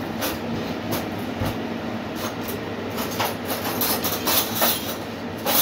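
Aloo paratha frying in a cast-iron pan: a steady sizzle with scattered crackles, and tongs pressing and scraping the paratha against the pan in the second half.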